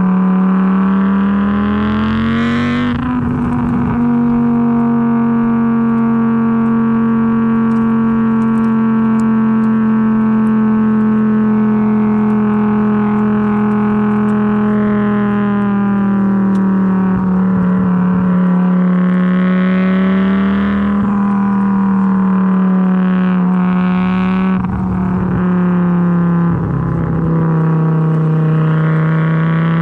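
A 1994 Audi S4's AAN 2.2-litre turbocharged five-cylinder running through a full 3-inch stainless exhaust with only a resonator and no muffler, while the car cruises on light throttle: a steady exhaust drone. The pitch rises briefly about two seconds in, eases down gently around the middle, and the note turns briefly rough a few times in the second half.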